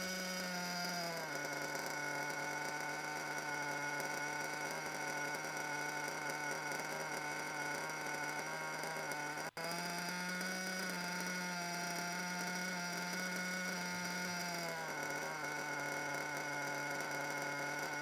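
Nitro RC engine idling unsteadily. The idle drops a little about a second in, and after a brief break about halfway it rises, holds for several seconds, and settles back down near the end. This wandering idle on a freshly broken-in engine is the sign of a bad front bearing.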